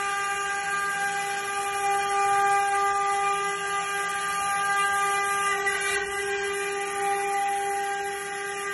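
Stone CNC router spindles running with a steady whine while machining stone, over a constant hiss.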